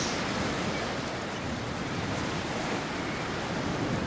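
Sea surf washing on the shore, a steady hiss of waves, with wind buffeting the microphone.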